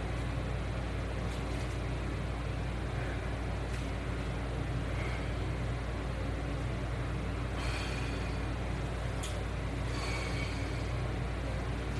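Steady low hum and hiss of background noise, with a few faint, brief rustling sounds in the second half.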